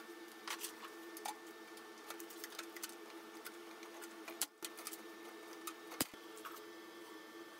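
Hand pop-rivet gun setting a rivet into a thin metal can: small metallic clicks and taps, then a single sharp snap about six seconds in as the rivet's mandrel breaks off. A steady low hum runs underneath.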